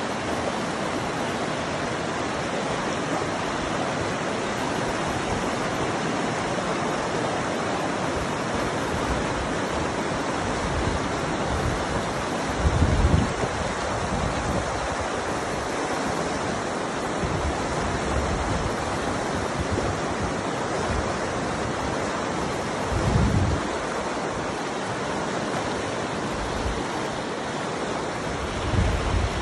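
Fast-flowing river rushing steadily over rocks and boulders. Wind buffets the microphone in three short low gusts: about 13 seconds in, just past 23 seconds, and near the end.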